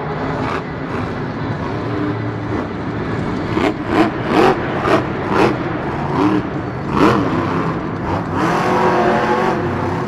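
Captain's Curse monster truck's supercharged V8 engine running hard, with a run of quick throttle blips in the middle, each one rising and falling in pitch.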